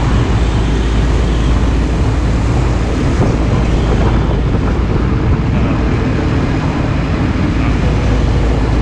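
Loud, steady, deep rumble of heavy truck traffic on a highway, with no distinct single event standing out.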